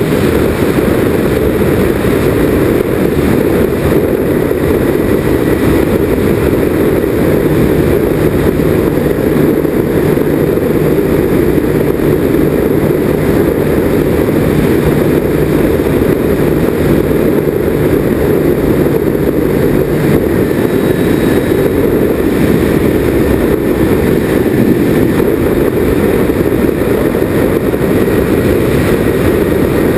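Twin-engine RC plane (Nitroplanes Grand Cruiser) in steady flight, heard from on board: a dense, steady rush of its propellers and the wind over the airframe. A faint low hum sits under it from about a quarter of the way in to about two-thirds through.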